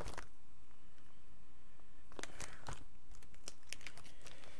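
Pokémon trading cards and their packaging being handled on a table: a quick flurry of light clicks at the very start, then after a short lull a longer run of clicks and rustling.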